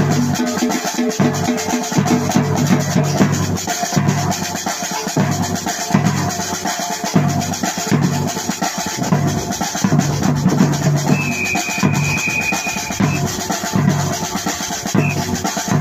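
Music with a steady drum beat and bass.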